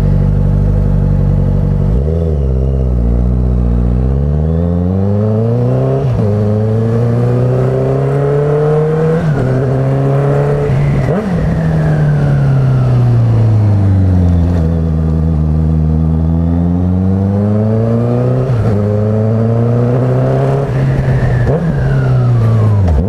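Honda CB650F inline-four engine through an aftermarket CS 4-2-1 full exhaust, heard from the rider's seat. It idles for about two seconds, then pulls away, the pitch climbing and falling back with each upshift. It eases off and slows about halfway through, then accelerates again, with a deep, hoarse exhaust note under throttle.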